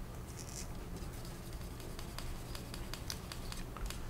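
Light scratching and scattered small clicks of fine dry-sanding and handling a plastic model car body.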